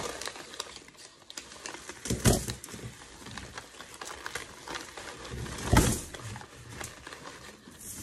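Brown paper bag crinkling and rustling as it is peeled off a microwaved brick. Two louder crunches, about two seconds in and near six seconds, come as chunks break away from the brick.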